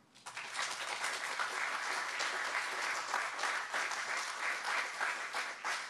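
Audience applauding, starting about a quarter second in.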